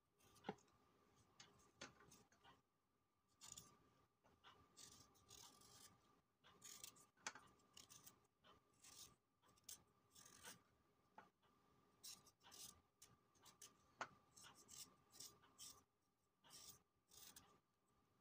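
Small knife scraping the skin off a fresh dandelion root: a run of faint, short scraping strokes, irregular, with sharp clicks among them.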